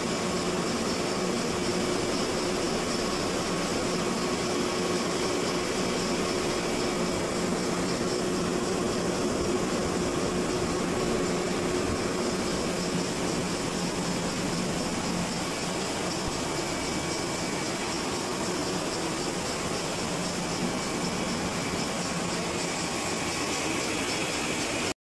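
Air-conditioning unit running: a steady fan and motor hum with a few steady tones.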